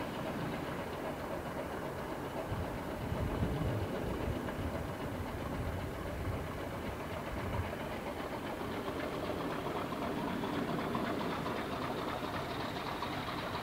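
Diesel locomotive engines idling with a steady rumble and some low throbbing in the first half. A high whine rises gradually near the end.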